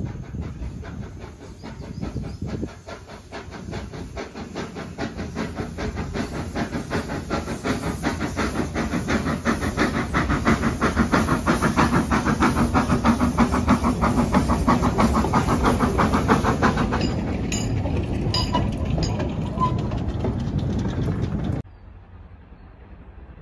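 Steam locomotive working hard, its rapid exhaust beats growing louder as it approaches and passes, then fading a little before the sound cuts off suddenly near the end.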